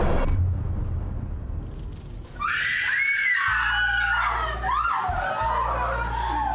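Music cuts off abruptly, leaving a fading low rumble. About two and a half seconds in, shrill, wavering screaming starts over a low droning bass.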